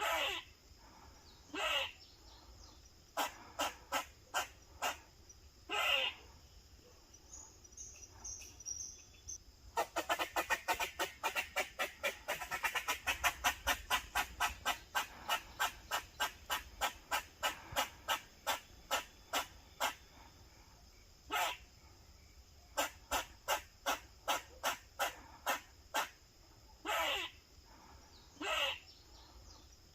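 Grey squirrel alarm-barking: short, sharp barks repeated, broken by a few longer calls that fall in pitch. About a third of the way in the barks come fast and steadily for around ten seconds, then slow again. This is the squirrel's protective alarm call.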